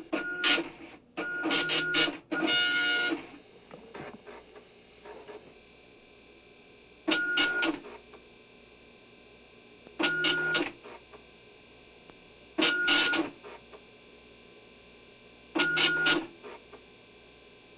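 Dot matrix printer printing in short, buzzy bursts with a steady whine, each burst under a second long. Three come in quick succession at the start, then one follows about every three seconds, with quieter pauses between.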